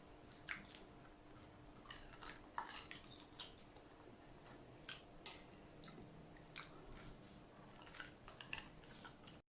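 Faint, scattered clicks and crackles of a hard-boiled egg's shell being cracked and picked apart with the mouth, without hands. The sound cuts off suddenly near the end.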